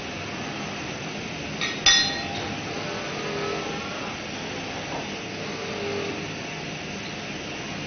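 Industrial robot arm moving a glass beer bottle: a sharp, ringing glass clink about two seconds in, then the arm's drives whining in faint rising and falling tones as it swings the bottle down, over a steady hiss.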